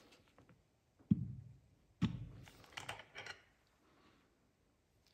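Two dull knocks about a second apart, followed by a few lighter clicks: metal piston-assembly tools and engine parts being set down and handled on a workbench.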